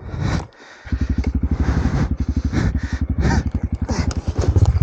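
Honda CRF300L's single-cylinder engine running at low revs with a rapid, even thumping of firing pulses; it comes in abruptly about a second in and grows a little louder near the end.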